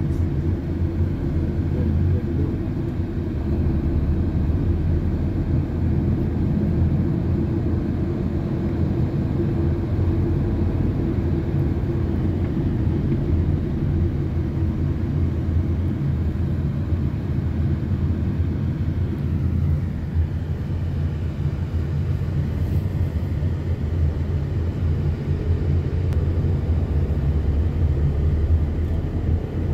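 Steady low rumble of a car's road and engine noise, heard from inside the moving car's cabin.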